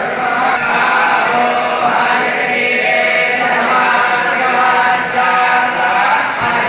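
Several voices chanting a Hindu devotional hymn, steady and unbroken.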